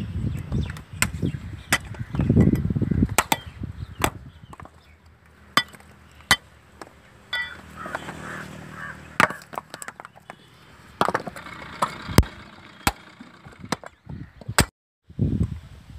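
Coconuts being split open: many sharp, irregular cracks in quick succession, with low rumbling in between.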